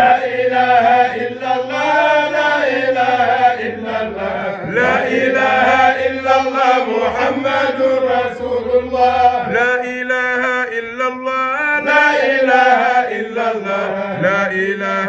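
Zikr chanting: voices chanting Islamic devotional phrases without pause, a wavering lead line over a steady held lower note.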